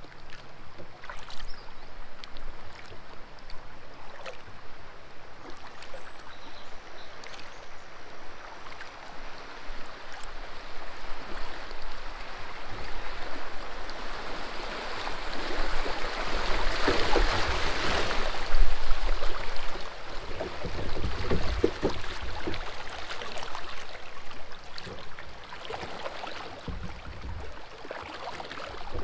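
Kayak paddle strokes splashing and dripping, with river water rushing along the hull. The water noise swells loudest about halfway through, and low wind buffeting hits the microphone at times.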